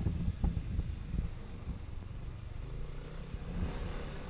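Yamaha NMAX scooter engine running steadily under way, under a low rumble.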